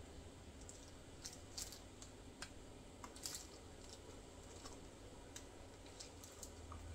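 Faint, irregular small clicks and rustles of hands handling plastic while resin is put into a piping bag.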